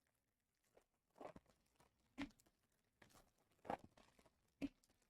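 Faint handling of trading card boxes and packaging: a few light knocks on the table and crinkling, tearing rustles of wrappers, alternating every second or so.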